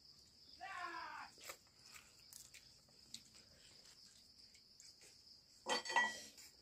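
Steady high insect chirring with two short animal calls, one about half a second in and a louder one near the end.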